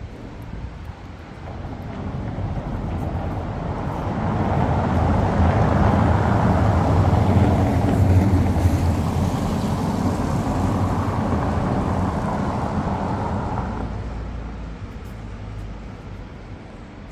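A passing motor vehicle: an engine hum and rumble build over several seconds, hold loudest through the middle, then fade away.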